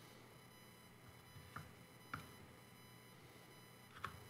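Near silence: faint room tone, broken by a few faint small clicks from soldering work on a circuit board, about a second and a half, two seconds and four seconds in.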